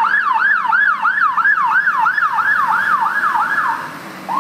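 Emergency vehicle siren on a fast yelp, about three sweeps a second, each jumping up then sliding down in pitch. The yelp stops near the end, and a slow rising wail starts just before the end.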